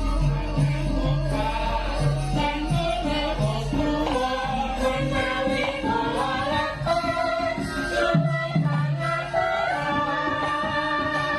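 Javanese gamelan playing while a female sinden sings a wavering melody over it. Deep sustained low tones underpin it and drop out about eight seconds in.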